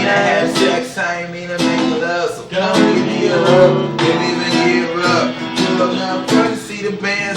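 Music led by a strummed acoustic guitar, with a voice singing over it.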